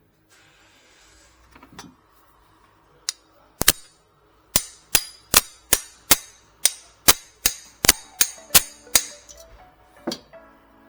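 A run of sharp metallic knocks, about a dozen of them at two to three a second, each with a short ringing tail, like blows on metal during the compressor work. Two separate knocks come just before the run, and background music comes in near the end.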